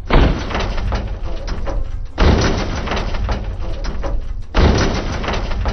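Hip-hop beat with heavy bass hits about every two and a half seconds.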